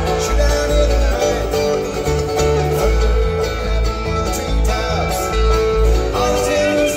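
Live bluegrass band jamming: strummed and picked acoustic guitars, banjo, mandolin and upright bass playing together over a steady bass line.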